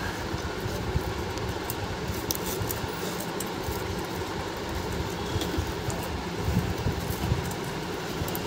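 Steady low background rumble with a few light clicks scattered through it.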